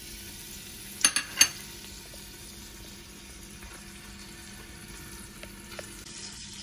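Diced bacon sizzling in hot olive oil, a steady hiss as the fat starts to render. About a second in there are three sharp knocks in quick succession.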